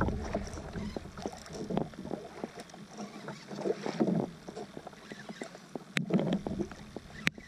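Water splashing and slapping against a kayak hull as a hooked fish tows the kayak, with scattered small clicks and knocks throughout and two sharp clicks near the end.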